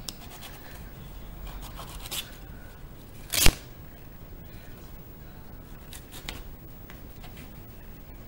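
Scraping and rubbing of a torn-up sneaker's suede, rubber and sole pieces being handled by hand, with scattered small clicks and one sharp knock about three and a half seconds in.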